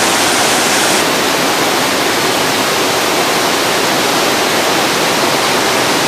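Waterfall pouring over rocks into a pool: a loud, steady rush of falling water.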